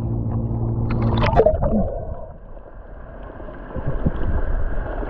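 A boat engine's steady hum, which stops about a second and a half in as the microphone goes under the sea surface. After that come muffled underwater gurgling and water noise.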